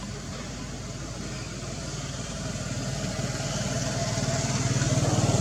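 A motor vehicle's engine running with a low, rapid pulsing, growing steadily louder over the last few seconds.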